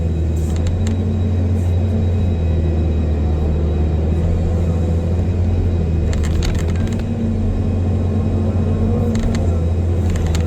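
Excavator diesel engine running steadily at working revs, with a deep, even drone, while it digs pond sludge. Short knocks and rattles come from the machine at about half a second in, around six seconds and near the end.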